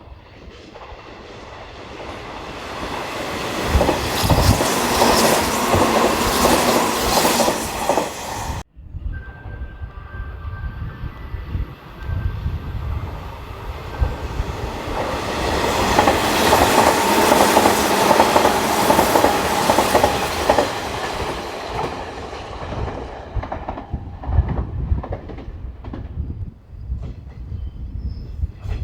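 Hanshin Railway electric trains going by a platform, with wheel clatter over rail joints. One train swells in loudly and cuts off abruptly about eight and a half seconds in. A second train builds up, peaks, then fades into a few separate clacks near the end.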